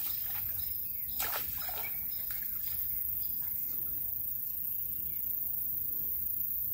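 Small birds chirping in short, high, repeated notes over a steady low wash of floodwater moving around someone wading, with one sharper splash or knock about a second in.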